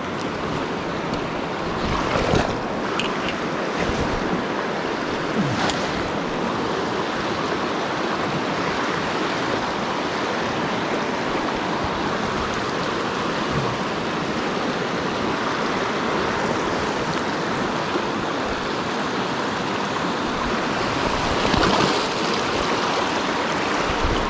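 Shallow mountain river rushing over rocks and around a fallen log, a steady wash of running water. A few brief bumps close to the microphone rise above it.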